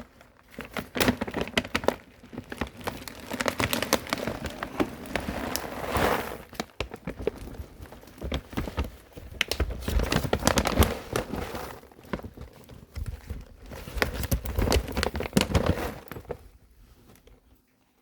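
Plastic packaging crinkling and rustling in repeated bursts as a delivered bag of dry cat food is handled.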